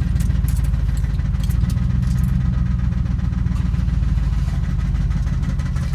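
Squarebody pickup truck's engine running steadily at low speed, a low engine note with no break.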